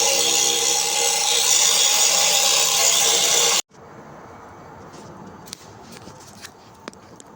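A power tool running steadily and loudly, cutting off abruptly about three and a half seconds in; after it, quiet room sound with a few faint clicks and knocks.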